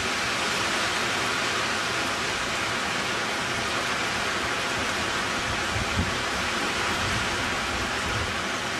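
A steady hiss of background noise with no pattern or pitch, and a faint thump about six seconds in.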